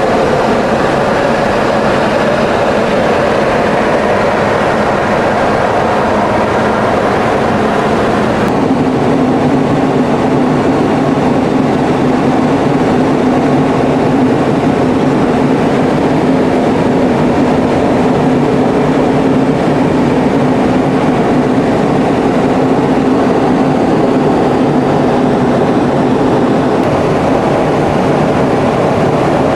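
Steady loud roar of airflow and jet engines inside the cockpit of a Boeing 707-based jet flying close behind a tanker. About eight seconds in the sound changes abruptly and a steady low hum comes in.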